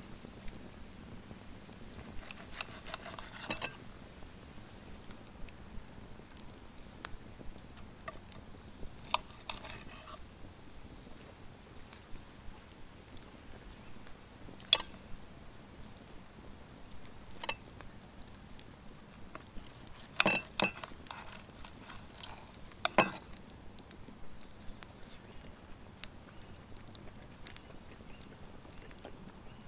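A steak knife and fork on a plate, scraping and clinking now and then as the cooked steak is cut. There are short runs of scraping and a few sharp clicks, the loudest about two-thirds of the way through.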